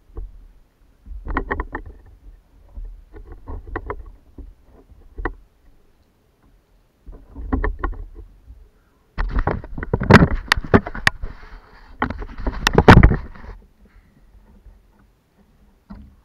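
Knocks, clicks and rustling from movement and gear handling aboard a plastic sit-on-top kayak, in short spells, with a louder, busier stretch a little past halfway.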